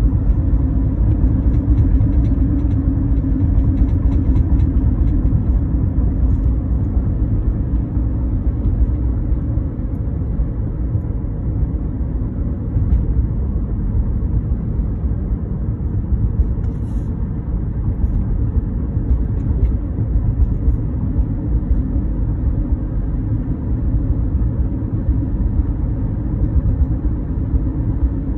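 Road noise inside a moving car's cabin while cruising: a steady low rumble of tyres and engine with a constant low drone.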